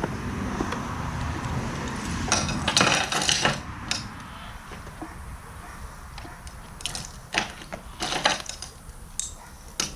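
Small hard objects being rummaged through in a box of mixed junk: rustling and clinking, with a burst of clattering about two to three seconds in and scattered separate knocks and clicks after that.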